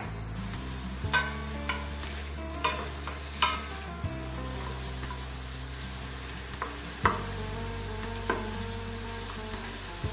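Onion, celery and carrot sizzling as they sauté in a stainless steel pot, stirred with a wooden spoon that knocks against the pot's side about seven times at irregular intervals, loudest about seven seconds in.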